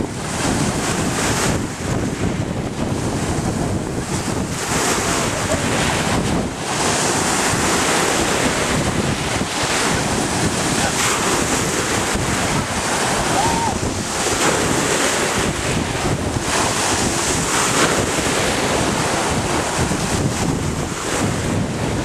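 Black Sea surf breaking and washing onto the shore in a steady wash, with wind noise on the microphone.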